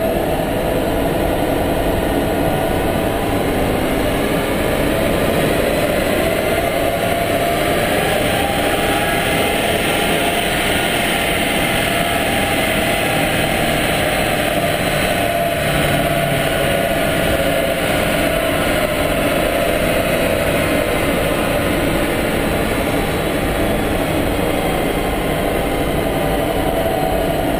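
Audi A6 3.0 TDI V6 turbodiesel, Stage 1 remapped, running under load on a chassis dynamometer's rollers. It makes a loud, steady drone whose pitch rises slowly and then eases back a little.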